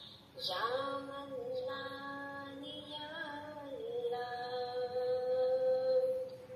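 A high voice singing a slow devotional song, phrase by phrase, ending on one long held note.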